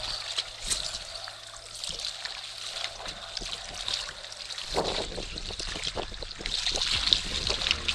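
Water lapping and trickling, with a crackle of many small clicks. About two-thirds of the way through it grows louder and fuller, with more splashing.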